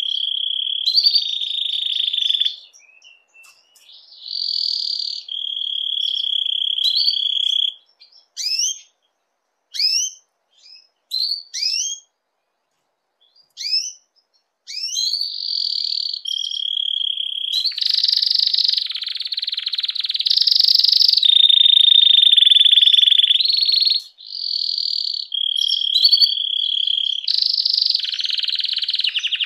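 Domestic canary in breeding condition singing: long rapid trills at a steady high pitch, broken in the middle by a run of short rising chirps with near-silent gaps between them, then longer, louder trills through the second half.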